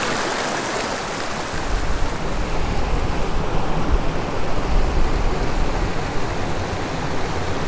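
Small mountain stream rushing over rocks, a steady hiss of flowing water. A low rumble sits under it for a few seconds in the middle.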